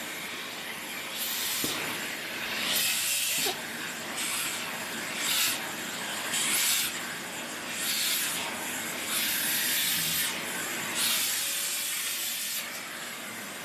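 Vacuum cleaner running as it is used to groom a cat. Its steady suction hiss swells to a louder, higher hiss in strokes, about every second or so, as the nozzle passes over the fur.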